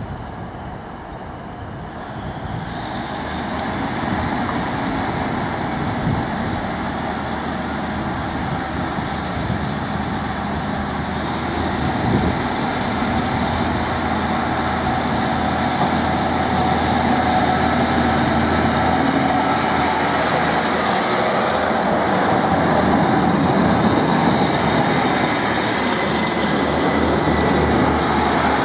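Diesel engine of a Class 153 Sprinter multiple unit (Cummins underfloor diesel) running at the platform, then throttling up as the train pulls away, growing louder in steps from a couple of seconds in and again past the middle.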